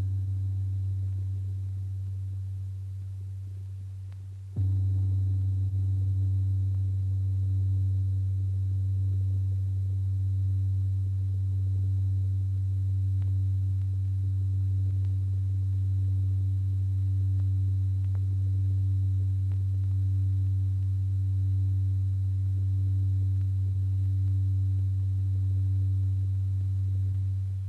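A low, steady drone tone with a few overtones. The first note fades over the opening seconds; then a louder one comes in about four and a half seconds in and is held steady until it cuts off suddenly at the end.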